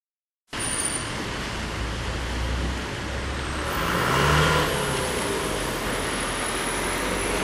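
Street traffic noise starting about half a second in, with a car driving past close by about four seconds in.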